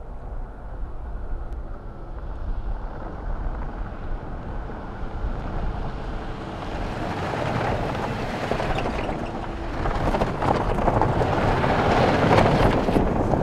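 Jeep SUV driving fast along a loose dirt trail: engine and tyre noise that builds through the middle and is loudest near the end as it passes close, with crackling from the tyres on the dirt.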